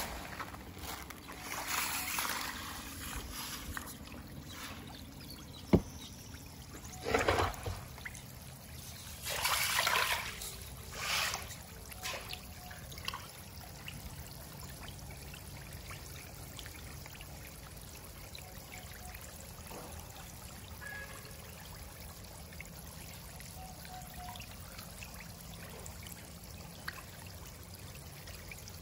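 Water splashing and trickling as a crowd of farmed catfish feed at the surface, taking floating feed pellets. There are a few louder splashing bursts and a sharp click in the first twelve seconds, then a steady light splashing and trickling.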